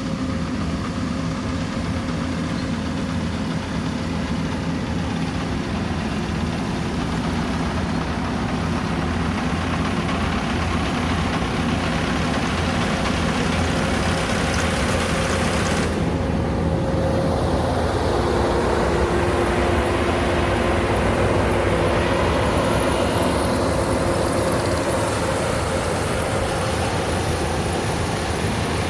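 Rice combine harvester's engine running steadily, with a thin machine whine over it. A second, lower whine joins about two-thirds of the way through.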